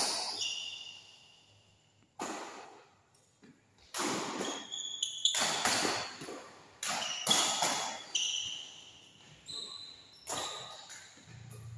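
Badminton doubles rally: rackets smack the shuttlecock every one to two seconds, with short high squeaks of shoes on the court floor between the shots.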